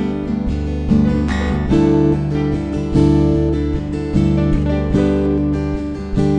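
Background music: acoustic guitar strumming chords, with a new strum roughly once a second.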